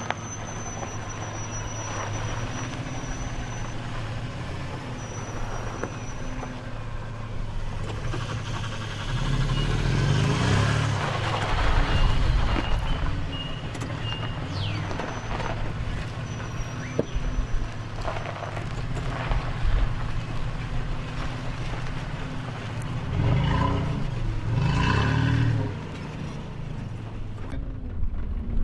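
Toyota Tacoma pickup truck's engine running, getting louder twice, about a third of the way in and again near the end, as the truck moves off.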